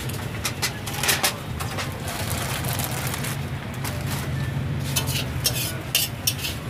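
Sharp clatters and crinkles of aluminium foil takeaway containers being handled and a metal spatula against a wok, in two clusters, about a second in and again near the end, over a steady low hum.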